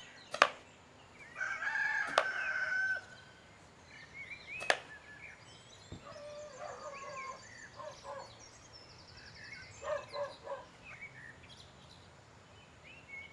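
A rooster crows once, starting about a second in, among three sharp knocks and scattered small bird chirps. A run of short clucks follows about ten seconds in.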